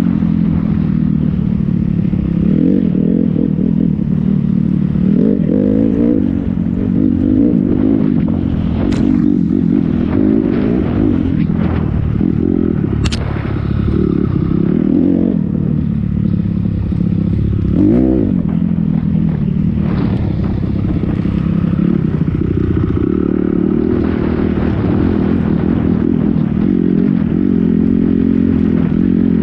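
Honda 250 dirt bike engine running under way, its pitch rising and falling as the throttle opens and closes. Two sharp knocks stand out, about a third of the way in and again shortly after.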